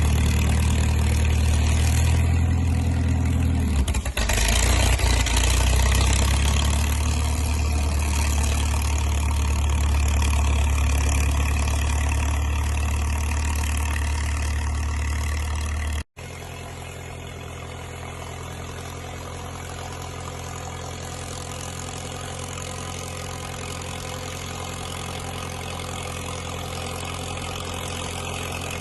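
Crawler dozer's diesel engine running steadily with a deep, even drone. Past the halfway point the sound cuts out for an instant and comes back noticeably quieter.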